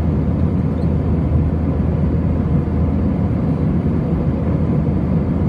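Steady cabin noise of an airliner in flight: the jet engines and the airflow over the fuselage make an even, low rumble with a hiss above it.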